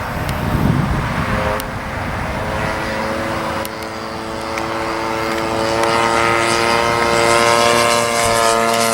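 A 50cc gasoline engine on a large radio-controlled aerobatic plane running in flight, holding a steady pitch and growing louder as the plane comes closer.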